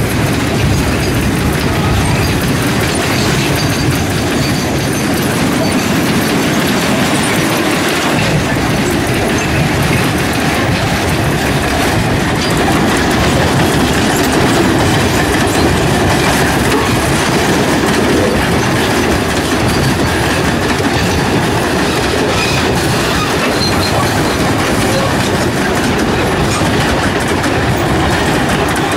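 Freight train cars rolling past close by: a steady, loud rumble of steel wheels running on the rails.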